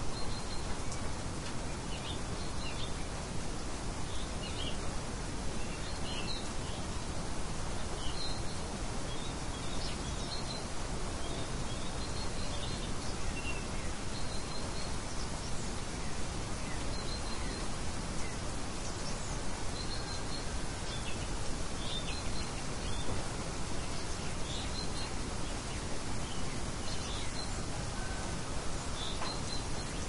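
Steady rain hiss with small birds chirping intermittently, short high chirps every second or two.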